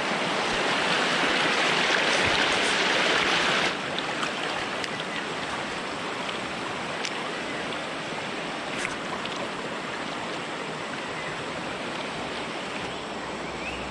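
Stream water rushing over rocks, a steady hiss that is louder for the first few seconds and then drops suddenly to a lower, even flow.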